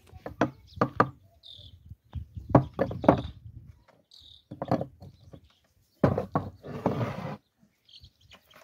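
Irregular knocks and thuds, about seven sharp strikes spread over the first five seconds, then a longer rough noise lasting over a second near the end.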